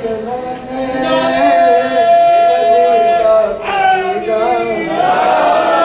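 A man's solo voice singing a line of an Urdu devotional poem into a microphone, drawn out with one long held note in the middle, then a short break and a wavering phrase that rises near the end.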